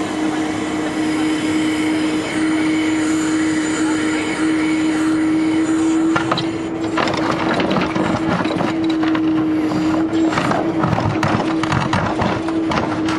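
Mini excavator engine running steadily with a constant whine; from about halfway its bucket scrapes and knocks through soil and stones.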